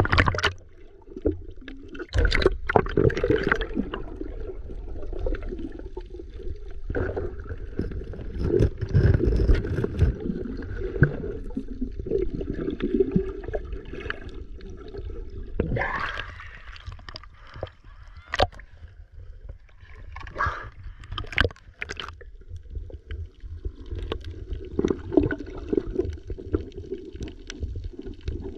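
Water sloshing and gurgling against a GoPro as it goes from the surface to underwater, muffled and heavy in the low end, with frequent sudden splashes and bubble bursts from the swimmer's movements.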